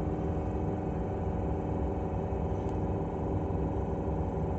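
90 class locomotive's diesel engine idling steadily, heard inside the cab.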